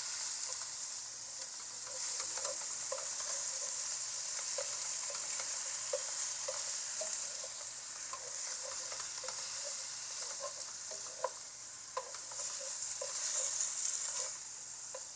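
Clear noodles, carrots and onions stir-frying in oil in a hot pan: a steady sizzle, with light, irregular taps and scrapes of the stirring utensil against the pan.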